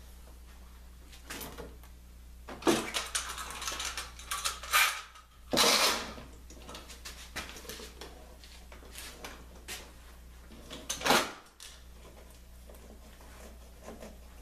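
Clamps and tools being handled during a wood glue-up, with knocks and clatter, a dense run of them a few seconds in, a short loud scraping noise around the middle and another loud knock near the end, over a steady low hum.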